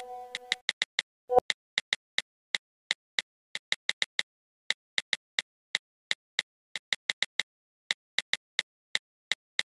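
Smartphone on-screen keyboard key-press clicks: short, dry taps at an uneven typing pace of about three a second as a message is typed. A brief low pop comes about a second and a half in.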